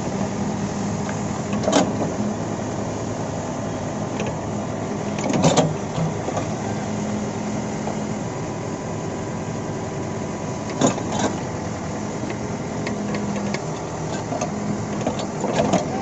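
Case 580L backhoe's diesel engine running steadily under digging load, with the bucket knocking and scraping against rock and soil several times, a few seconds apart.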